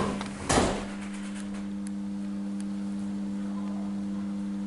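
A steady low hum held at one unchanging pitch, after a brief rushing noise about half a second in.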